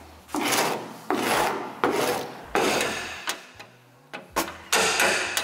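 Blade scraper pushing chemically softened paint off the steel body panels of a Toyota AE86, in about half a dozen scratchy strokes.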